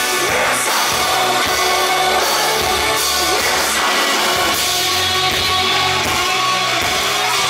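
Live rock band playing loud amplified music, with drums, guitar and a singer's voice through the PA.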